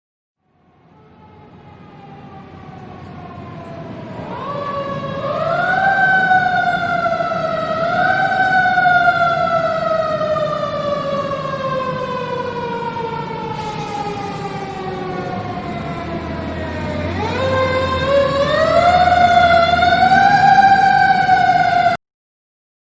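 An emergency vehicle's wailing siren growing louder as it approaches. It rises in pitch, falls slowly for many seconds, then sweeps up fast again, over a low rumble of traffic or engine, and is cut off abruptly near the end.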